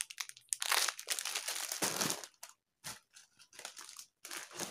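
Plastic grocery bags and packaging crinkling and rustling as groceries are handled and lifted out, in irregular bursts, heaviest in the first two seconds and then in scattered crackles.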